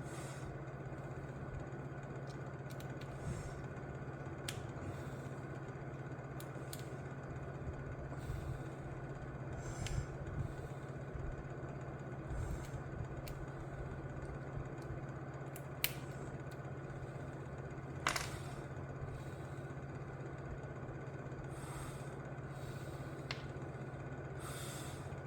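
Scattered clicks, clinks and light scrapes of small metal parts being handled over a steady electrical hum. The parts are pieces of an RC truck's slipper clutch being fitted together; the sharpest clicks come about 16 and 18 seconds in.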